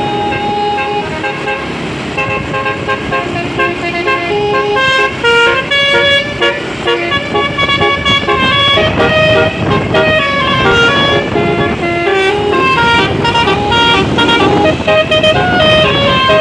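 Basuri telolet musical horn on a tour bus playing a melody: a loud run of horn notes that step from pitch to pitch several times a second, several tones sounding together.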